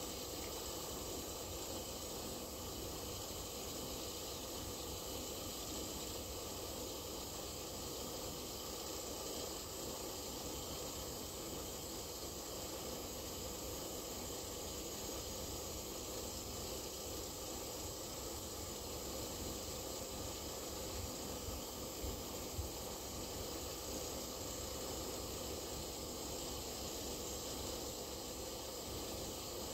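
Compressed air and cement powder rushing through a flexible hose into a silo: a steady hiss, with a few faint knocks about three-quarters of the way through.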